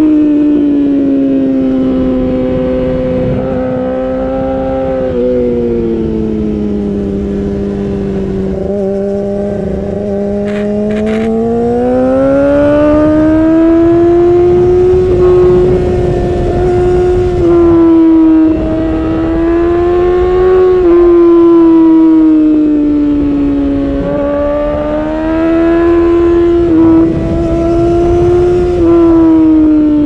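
Yamaha R6's high-revving inline-four engine through an Akrapovic Evolution Racing exhaust, running hard as the bike is ridden, its pitch rising and falling slowly with several quick steps along the way.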